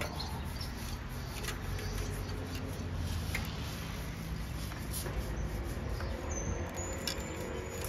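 Bristle brush scrubbing around the wet rear hub and chain of a bicycle, with faint scratching clicks and a short high squeak about six seconds in.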